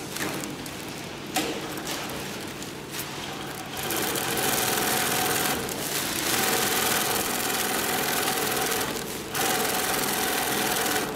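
Long-arm industrial zigzag sewing machine stitching sail fabric. After a few quieter seconds with a couple of light knocks, it starts about four seconds in and runs steadily with a held hum. It stops briefly twice as the operator repositions the fabric.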